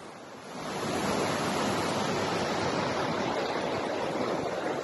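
Small mountain creek cascading over rocks, a steady rushing of water that swells about half a second in.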